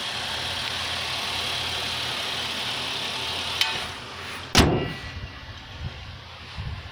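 A 2003 Chevrolet Impala's V6 engine idling steadily with the hood up. About four and a half seconds in, a single loud bang, the hood being shut, and the idle goes on quieter.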